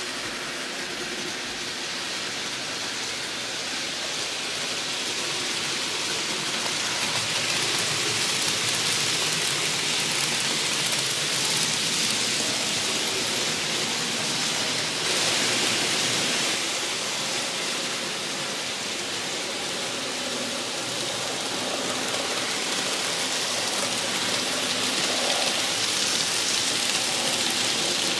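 N scale (1:160) model trains running on the layout: a steady rushing rattle of small wheels on the rails. It swells as a train passes, loudest about halfway through, and rises again near the end.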